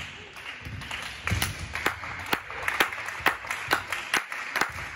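Spectators clapping in a steady rhythm, about two claps a second, starting about a second in over a general wash of applause.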